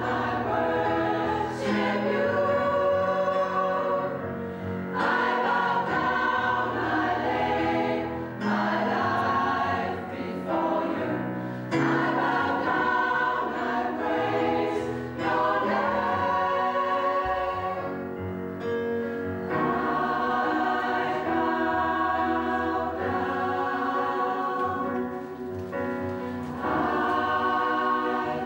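Mixed-voice gospel choir singing in phrases of a few seconds each, with brief breaks between them.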